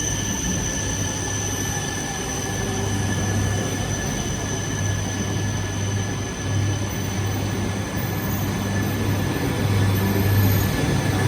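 E5 series and E3 series shinkansen set rolling into the platform, a steady high-pitched whine at several pitches over a low hum, growing a little louder near the end.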